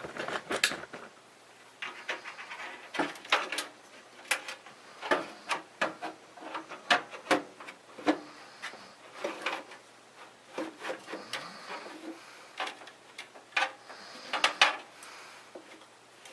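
Clicks, knocks and rubbing from handling computer hardware: power and data cable connectors being pushed onto an IDE hard drive and a SATA-to-IDE adapter. The sharp, irregular clicks and taps come in quick clusters throughout.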